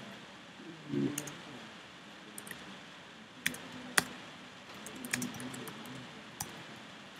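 Sparse keystrokes on a computer keyboard: a handful of separate, irregular clicks while a line of code is typed.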